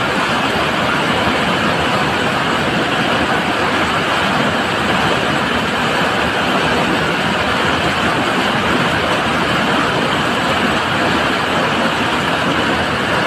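Swollen, fast floodwater after heavy rain rushing and churning through a narrow channel: a loud, steady rushing noise.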